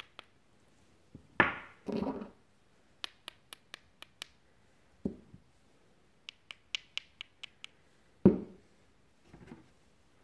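Rock pieces handled in the hands, clicking and knocking against each other and a plastic basket: runs of quick light clicks with a few louder knocks and scraping rubs, the loudest near the end.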